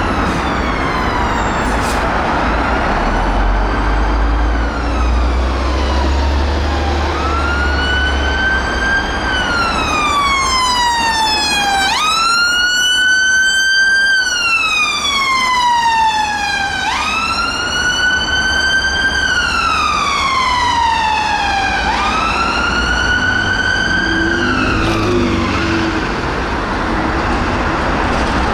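A Fiat Ducato emergency ambulance's siren on a slow wail. Each cycle sweeps up quickly, then slides down over about four to five seconds, and the cycles repeat until the siren dies away near the end.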